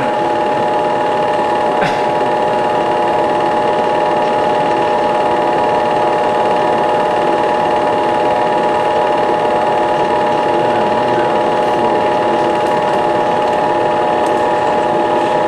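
Super 8 film projector running steadily: the fast, even clatter of its film-advance mechanism over the constant whine of its motor.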